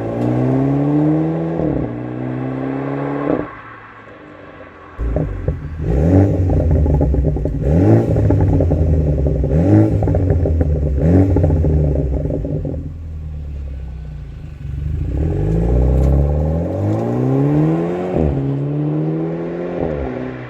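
BMW Z4 E89 2.0i four-cylinder engine revved repeatedly through a silencer-deleted dual-exit exhaust. The pitch climbs and falls back several times, with four quick, sharp blips in the middle and crackles as the revs drop.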